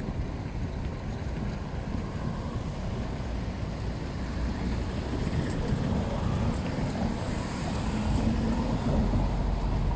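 Outdoor city street noise: a steady low rumble of traffic mixed with wind on the microphone, swelling louder near the end.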